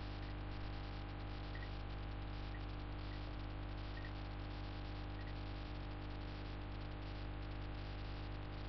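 Faint steady electrical mains hum with a layer of hiss from the recording setup, unchanging throughout.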